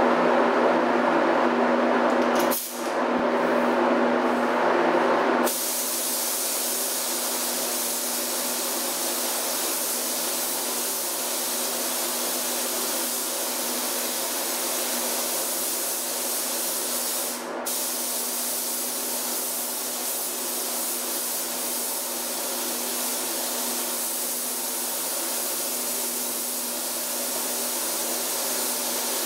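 Gravity-feed compressed-air paint spray gun hissing steadily as paint is sprayed onto a car hood, louder and fuller for the first few seconds and briefly cut once about two-thirds of the way through, over a steady low hum.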